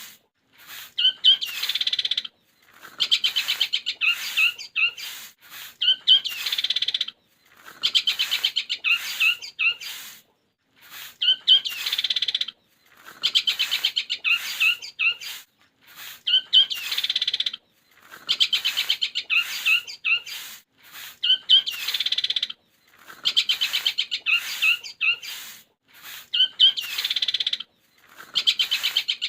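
Long-tailed shrike (cendet) singing in the 'greja petir sambung kuntilanak' style: phrases of rapid chattering notes and buzzy trills about two seconds long, separated by short pauses, repeating over and over in the same pattern.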